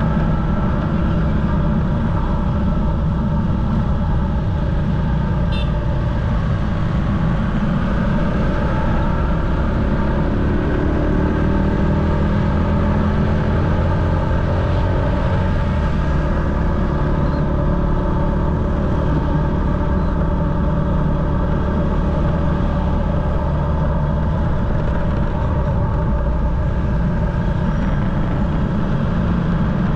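Motorcycle engine running while riding, over a steady low rumble. The engine pitch glides up and down for a few seconds about ten seconds in.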